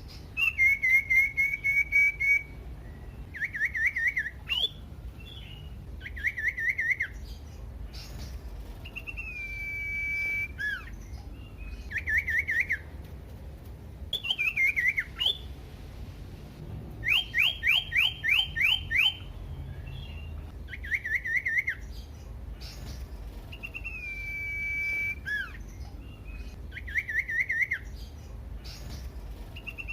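Common iora singing a varied series of loud whistled phrases: quick warbling trills, long held whistles that drop in pitch at the end, and a run of about six fast downward-sweeping notes about 17 seconds in. The phrases are separated by short pauses.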